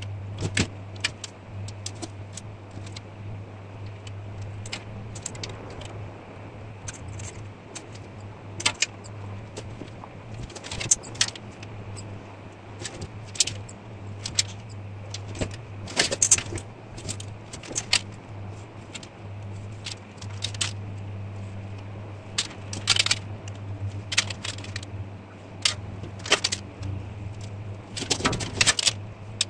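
Irregular metallic clinks and taps from a steel breastplate and a steel rule being handled and set down on a metal workbench while crease lines are marked out. A steady low hum runs underneath.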